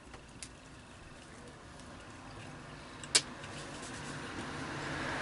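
A car approaching on the road outside, heard from inside a parked camper: its engine and tyre noise swells steadily through the second half. A single sharp click about three seconds in.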